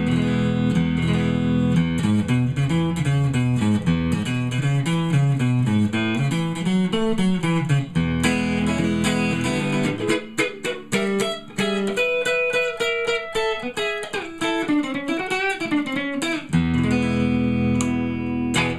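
Custom Telecaster electric guitar with Fender '62 reissue pickups, amplified and played on its neck pickup with a pick: moving single-note and bass-note runs broken by held low chords, about a second in, about halfway through and near the end.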